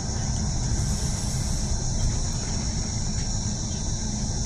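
Interior of a Mercedes-Benz Citaro G articulated diesel bus (Euro 5) driving along at steady speed: low, even engine and road rumble, with a constant high hiss over it.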